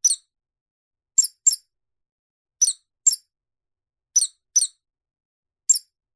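Mouse squeaking: about eight short, very high squeaks, mostly in pairs spaced about a second and a half apart, each dropping a little in pitch.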